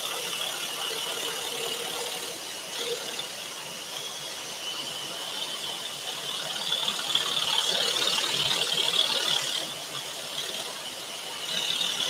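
Scroll saw running, its blade cutting internal fretwork in a patterned panel, with a steady high-pitched whine that swells louder about seven seconds in.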